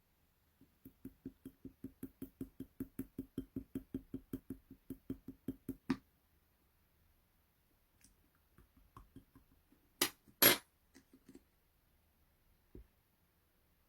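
Clear jelly-like slime being squished and slapped by hand, with quick, even wet pats about five times a second for about five seconds. After a pause come softer scattered squishes and two loud sharp pops about ten seconds in.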